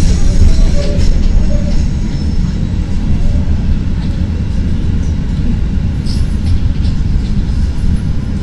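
Steady low rumble of a CTA Red Line 'L' train running on the elevated steel structure, heard from inside the car, with a few faint high tones and clicks from the wheels and track.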